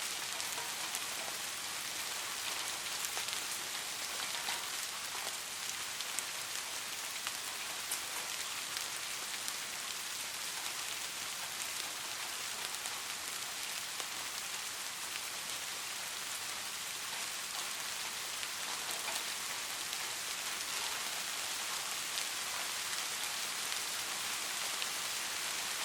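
Steady soft rain: an even hiss of rainfall dotted with many small, sharp raindrop ticks.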